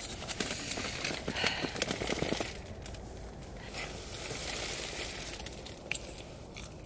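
Plastic sausage wrapper crinkling and tearing as it is opened by hand, a flurry of small crackles over the first two seconds or so, followed by a soft steady hiss.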